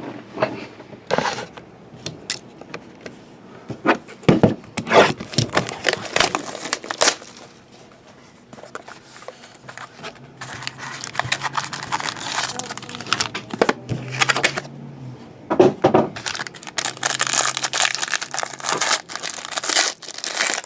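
A trading-card box and its packs being torn open by hand: a run of sharp rips, crinkling wrapper and paper rustles, with a quieter pause about halfway through.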